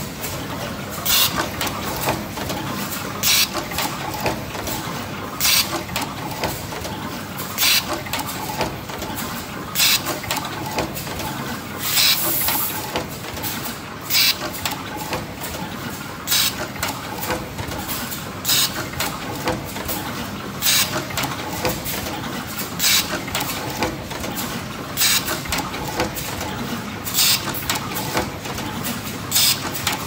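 Automatic double-sided wire crimping machine running its cycle: a steady mechanical din, with a short, sharp burst repeating about every two seconds as each stroke comes round.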